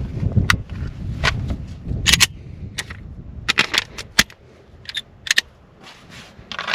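About a dozen gunshots fired at irregular intervals, some in quick pairs and clusters of three, with low wind rumble on the microphone.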